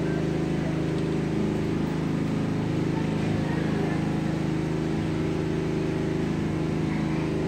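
A steady mechanical hum from a running motor or engine, holding one even pitch with no rise or fall.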